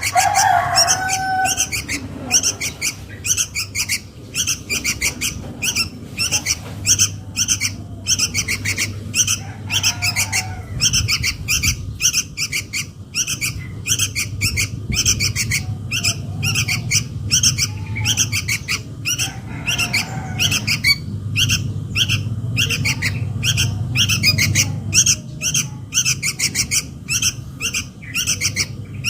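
Sooty-headed bulbul young giving begging calls to their parent: a fast, unbroken string of short, high chirps, several a second, with a few lower calls now and then. A steady low hum lies underneath.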